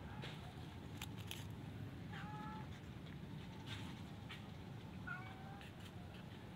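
A cat meows twice, two short calls about three seconds apart, with a few brief soft clicks between them over a low steady background rumble.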